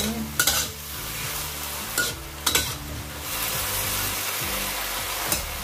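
Mushrooms and bell pepper strips sizzling in a hot oiled wok while a spatula stirs them, with a few sharp scrapes of the spatula against the wok.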